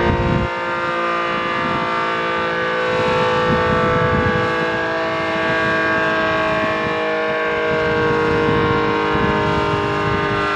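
ACA Screamer S-10 outdoor warning siren sounding at a steady pitch, a chord of many held tones. Its lid intake holes are broken out and its motor is reverse-wired, which the owner says starves it of air and makes it run fast but not very loud.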